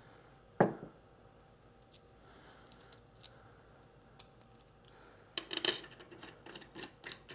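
Metal washers and a bolt clinking as they are handled and fitted together: one sharp ringing clink about half a second in, faint scattered ticks, then a quick run of light metallic taps near the end as the bolt is set into the shunt terminal.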